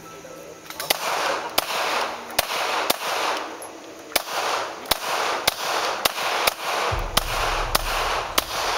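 Semi-automatic pistol shots in a string of about fourteen, starting about a second in and coming at an uneven pace of one to two a second, each sharp crack trailing off into an echo.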